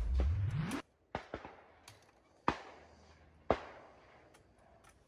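Sharp clicks and cracks of a shotgun being handled between shots, the two loudest about a second apart. A brief rising rush of noise comes at the very start.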